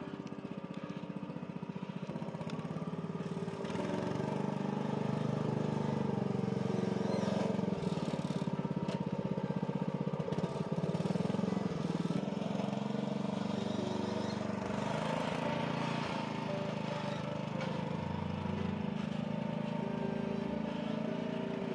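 Small engine of a farm utility carrier running as it is driven past and away, with an even, fast putter; it is loudest through the middle and eases off toward the end.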